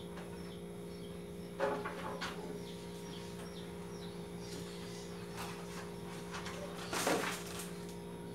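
Household items being handled and set down, with a few short clatters about two seconds in and a louder cluster about seven seconds in. Under them run a steady electrical hum and faint repeated high chirps.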